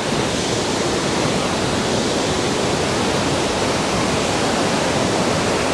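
Waterfall pouring, heard close as a steady, even rush of water.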